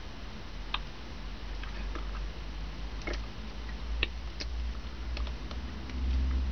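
A few sharp, scattered clicks and taps from hands moving and handling a small metal part, over a steady low rumble that gets louder near the end.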